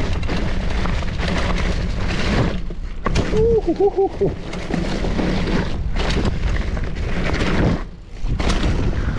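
Norco Torrent hardtail mountain bike ridden over a rough, wet trail: a steady rumble of wind buffeting and tyre noise, with frequent clattering knocks from the bike. A short wavering pitched sound comes about three and a half seconds in.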